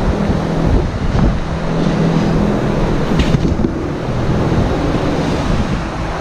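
A steady low mechanical hum under a continuous rushing, wind-like noise, with a couple of faint ticks.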